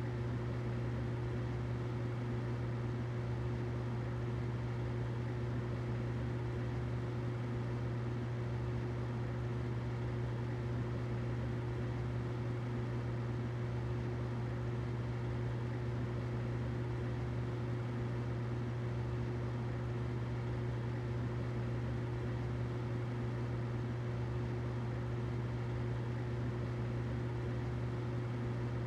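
Humidifier running steadily: a constant low hum with a faint steady tone above it and a soft even hiss.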